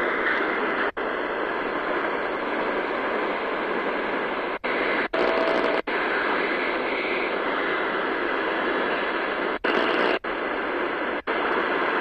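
A portable receiver's loudspeaker hisses with medium-wave AM static between stations while it is tuned up the band. The audio cuts out for a split second at each retune, about seven times, and a short faint whistle comes in about five seconds in.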